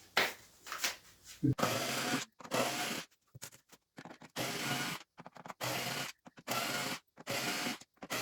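Plastic keys of a Casio CTK-7300 keyboard being wiped clean: a series of short rubbing strokes, about one a second, after a few light clicks in the first second and a half.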